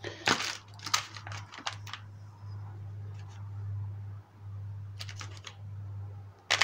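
Small clicks and clatter of oil seals and small parts being picked through by hand, in a few short bursts, over a steady low hum.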